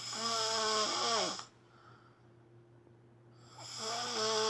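A sleeping man snoring: two long snores about three seconds apart, each a buzzing, hissing tone that drops in pitch as it ends.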